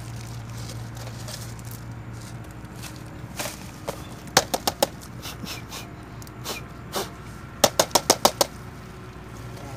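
Sharp knocks on a long tube-shaped snake trap as it is handled and tipped: a few single knocks, a quick run of four about halfway through, then a faster run of six near the end.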